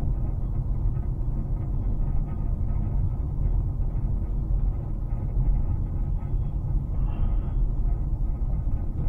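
Steady low rumble of a car driving, heard from inside the cabin: road and engine noise. There is a short brighter hiss about seven seconds in.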